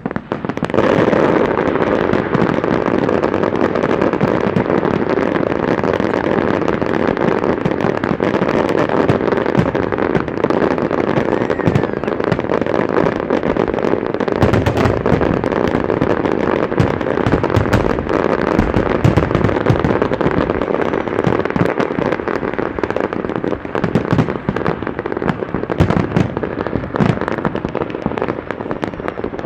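Fireworks display: a dense, continuous barrage of bangs and crackling, building up about a second in and going on without a break.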